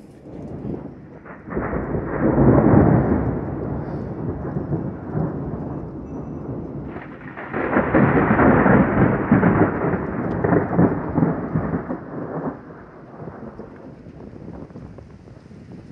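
Two long rolls of thunder in a thunderstorm. The first builds about a second and a half in and rumbles for several seconds. The second breaks sharply about seven seconds in and rumbles for about five seconds before fading, with rain steady underneath.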